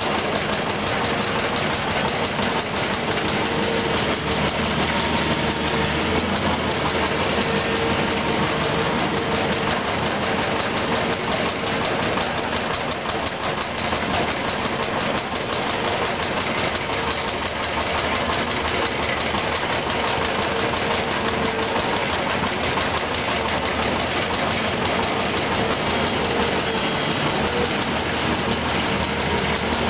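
Volvo EC210B excavator's six-cylinder diesel engine running steadily while the machine digs and swings its loaded bucket, with a steady whine over the engine hum.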